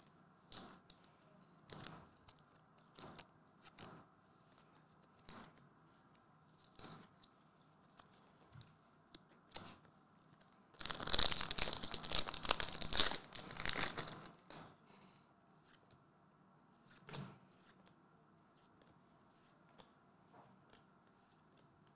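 Foil trading-card booster pack being torn open and crinkled, a loud stretch of about three and a half seconds near the middle. Before it, faint scattered taps and ticks of cards being handled.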